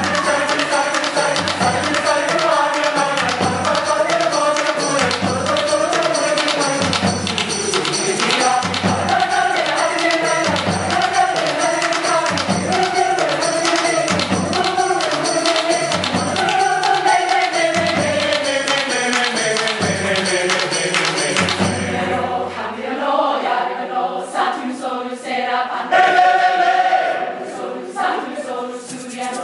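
Mixed choir singing a Tamil film song, accompanied by hand drums (cajón and a barrel drum) and piano. A deep drum beat about once a second carries the first two-thirds, then drops out, leaving the voices over lighter, choppier accompaniment.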